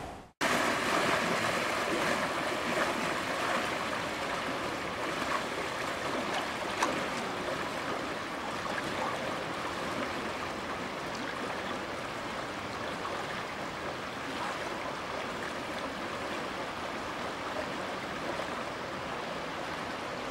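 Steady rush of floodwater: a swollen river flowing fast across a flooded road.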